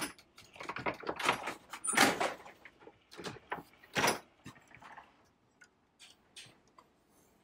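A chain-link enclosure door being handled: a quick run of metallic rattles and knocks for about four seconds, loudest twice near the middle, then a few faint clicks.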